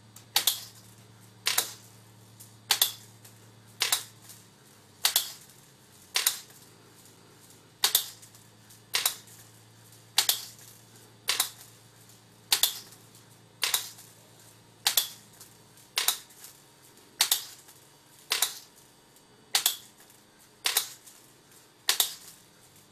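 Solenoid gates of a Bytronic bead sorter clicking open and shut at a steady beat of a little under one a second, letting beads drop one at a time so they alternate white and black. A faint low hum runs under the clicks for the first two-thirds.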